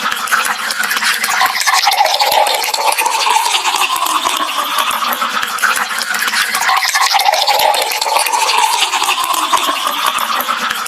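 Red wine moving in a glass: a continuous wet swishing that swells and fades in slow waves about every two seconds.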